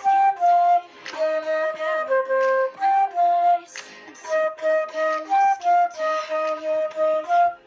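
Solo concert flute playing a slow melody of held notes, the same short phrase played twice, with brief gaps between phrases.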